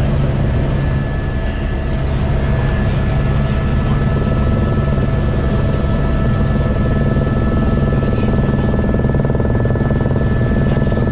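Helicopter in flight heard from inside the cabin: a loud, steady rotor and engine drone with a fast pulsing beat and a few steady high whine tones.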